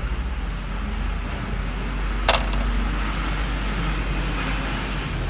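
Steady low rumble of background noise, with one sharp click a little over two seconds in.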